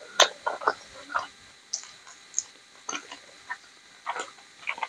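Close-miked eating sounds: chewing a mouthful of rice and rajma, with an irregular run of short mouth clicks and smacks, the sharpest just after the start.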